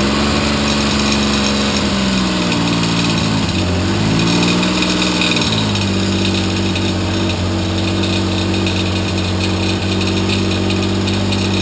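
Triumph T160 Trident three-cylinder motorcycle engine running just after its first start in 37 years. Its pitch dips and rises again a few seconds in, then it settles to a steady idle. It makes a noise that the owner places in the timing cover, later traced to the timing pointer he left in rubbing the ignition rotor.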